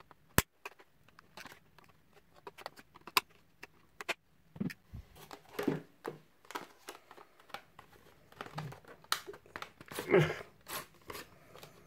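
Paper and plastic tool packaging being handled and pulled open: intermittent rustling and crinkling, with a few sharp clicks.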